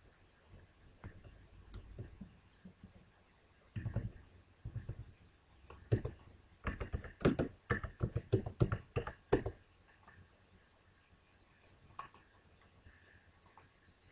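Computer keyboard being typed on: a few keystrokes, then a fast run of them in the middle, then only the odd click.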